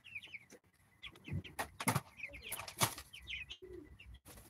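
A flock of four-week-old broiler chickens peeping: many short, high chirps that slide downward, overlapping. A few sharp knocks come between about one and a half and three seconds in.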